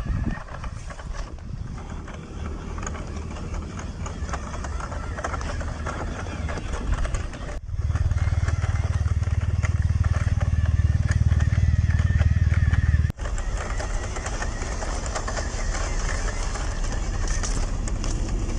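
WPL C14 1/16-scale RC truck driving off-road: its small electric motor and gearbox running, with tyres crackling over dirt and gravel. The sound changes abruptly twice, with a heavy low rumble in the middle stretch.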